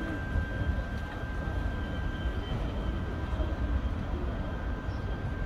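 Steady low outdoor rumble, with a faint steady high-pitched whine over it.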